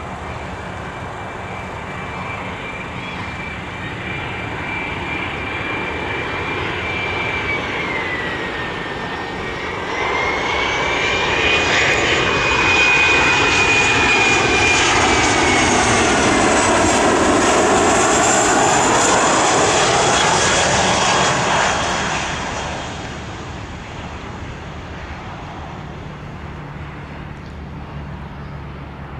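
Jet airliner passing close by. Its engine noise builds, stays loudest for about ten seconds in the middle, then fades. A steady high whine runs through it, dipping in pitch for a moment and returning.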